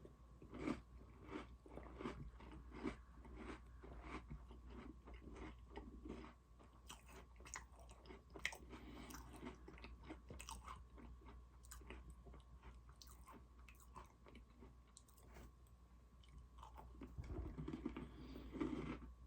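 Close-up chewing and crunching of Oreo cookies: a continuous, irregular run of crisp crunches and wet mouth sounds, louder again near the end.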